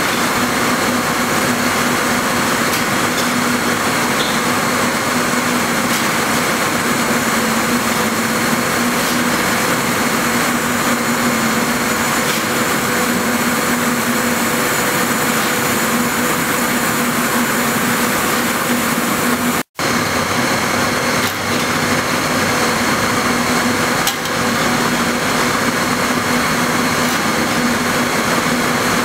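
Ring spinning frames with compact-spinning suction running in a spinning mill: a steady, loud whirring hiss with a low hum underneath. The sound drops out for an instant about twenty seconds in.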